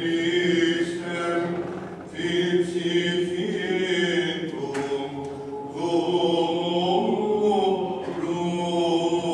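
Greek Orthodox Byzantine chant sung by men in long held notes, phrase after phrase, with short breaks between phrases.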